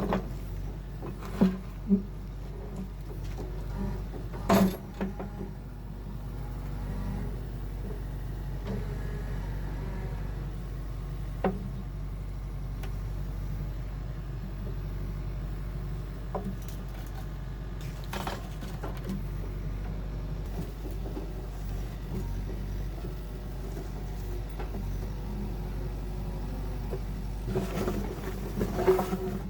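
A steady low motor hum runs throughout, with scattered knocks and clatters, the loudest about four and a half seconds in and near the end.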